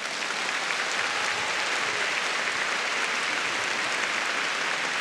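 Large arena audience applauding, a dense steady clapping that swells up right at the start and then holds: the ovation at the end of a figure-skating program.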